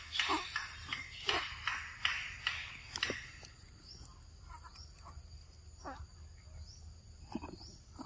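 Macaque eating soft mango-like fruit: a quick run of wet chewing and slurping noises, about two a second, through the first three seconds. Then it goes quieter, with a few short animal calls over a steady insect drone.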